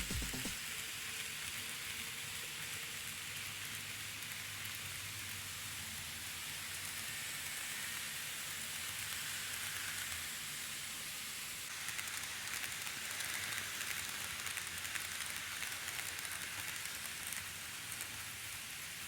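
N gauge model train running on the layout track: a steady hissing rattle of wheels on rail with a faint motor hum, the clatter getting busier about two-thirds of the way through.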